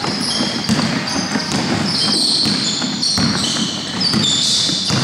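A basketball being dribbled on a hardwood gym floor, with sneakers squeaking in short high chirps and a low echoing murmur of the hall.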